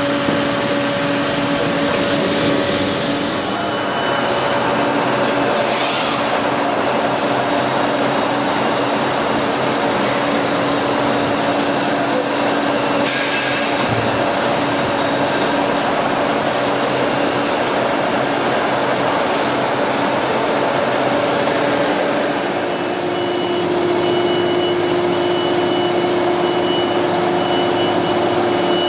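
Pama boring and milling machine running: a steady machine noise with a held whine and hum, whose pitch changes about two-thirds of the way through.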